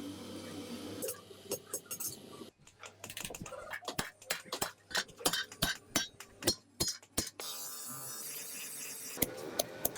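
Hammer blows on metal at the forge: a run of sharp strikes, about two to three a second, from about two and a half seconds in until about seven seconds, with steadier workshop noise before and after.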